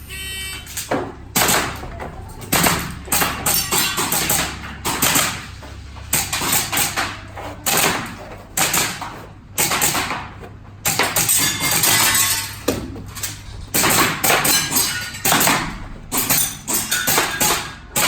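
Airsoft gas blowback pistol firing strings of shots, sharp cracks in quick clusters with short pauses between them, over a steady low hum.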